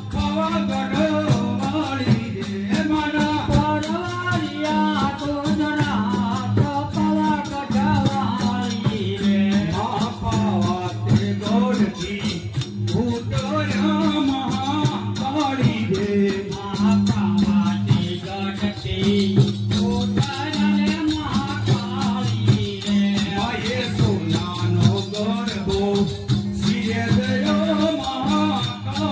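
Navaratri garba folk music: a singing voice over a steady low drone and a quick, continuous rattling percussion beat.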